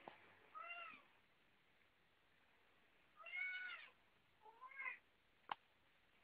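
Domestic cat meowing three times, short separate calls with the second the longest and the last rising in pitch, then a single sharp click near the end.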